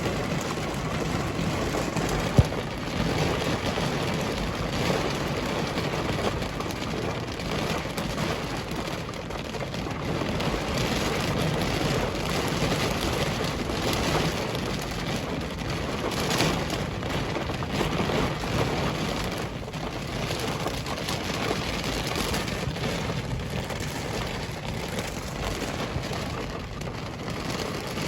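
Heavy thunderstorm rain pelting a car in a steady downpour, with one sharp knock about two seconds in.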